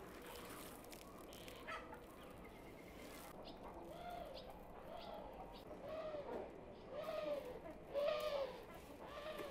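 A series of short calls from an animal, each rising and falling in pitch, about one a second starting a few seconds in and getting louder toward the end.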